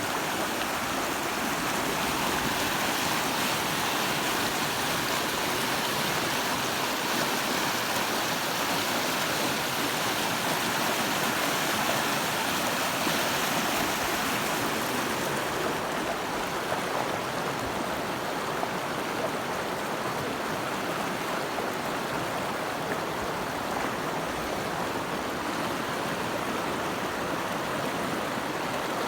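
Steady rush of flowing river water, its hiss easing slightly about halfway through.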